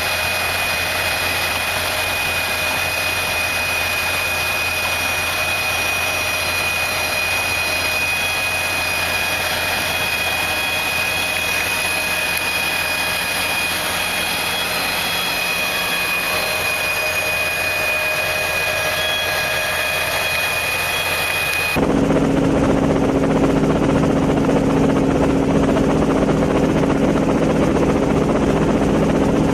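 Steady engine noise with a high, even whine. About 22 s in it cuts abruptly to a louder, lower engine drone.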